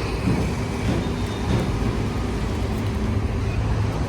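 A motor vehicle engine running steadily with a low hum, amid road traffic noise.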